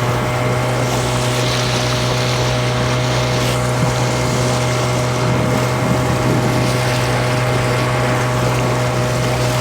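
A motorboat's engine running steadily at cruising speed, a constant low hum with a hiss of wind and water over it.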